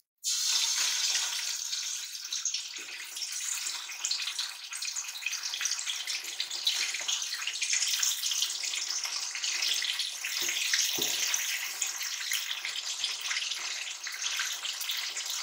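Raw chicken pieces sizzling and crackling as they fry in hot cooking oil in a karahi, the oil bubbling hard around them, with a couple of soft knocks about two-thirds through.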